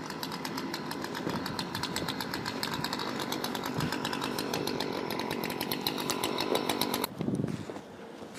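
A small engine running steadily with a rapid pulsing beat and a constant hum, cutting off abruptly about seven seconds in.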